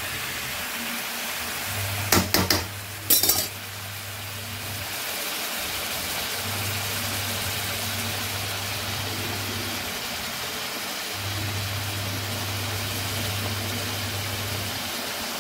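Chicken pieces frying in a kadai with a steady sizzle, a metal ladle clinking against the pan a few times about two to three seconds in. A low hum comes and goes beneath it.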